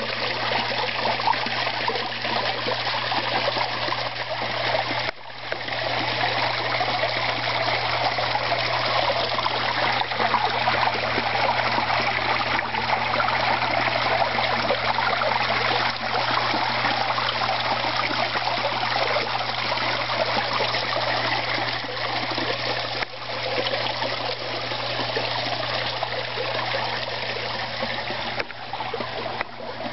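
Running water in a garden koi pond, trickling and splashing steadily, over a low steady hum. The sound dips briefly about five seconds in and again near the twenty-three-second mark.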